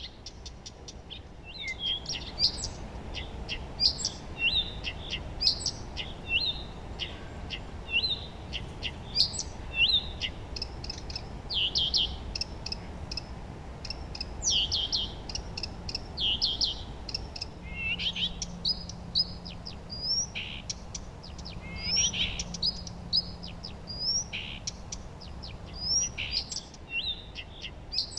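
Several songbirds singing and chirping at once, a dense chorus of short high notes and trills one after another, over a steady low rumble of background noise.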